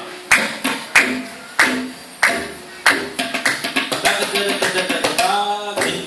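Several tabla sets played together, the small treble drum and the metal bass drum struck in ringing strokes. Single strokes about every half second give way to a fast, dense run of strokes about halfway through.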